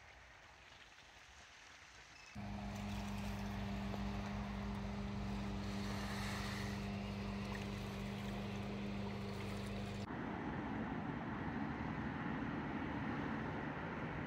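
A boat engine running steadily at one low pitch across calm fjord water, starting abruptly a couple of seconds in after near silence. About ten seconds in it switches to the even rushing noise of road traffic.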